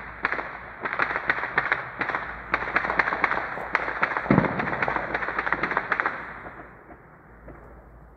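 A dense, rapid string of distant sharp bangs, many per second, with one deeper boom about four seconds in. The crackling dies away after about six seconds.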